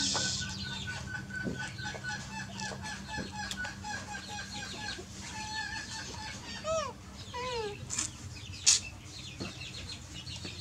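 Chickens clucking in the background, with a long run of quick repeated peeping notes and a few falling squeaky calls about seven seconds in.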